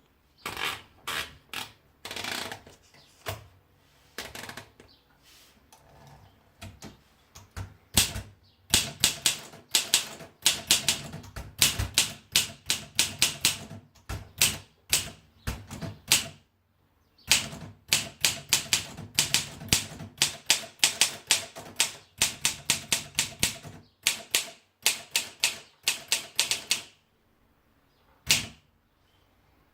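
Olympia SM7 manual portable typewriter being typed on, its typebars striking the platen in sharp clacks. A few slow keystrokes come first, then two runs of fast typing with a short break between them, and a single stroke near the end.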